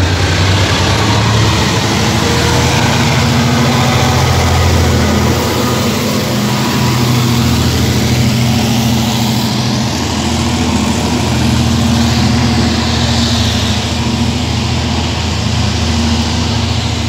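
Diesel locomotive engine running steadily with a low, even hum, over the rumble and rattle of a passenger train moving along the rails.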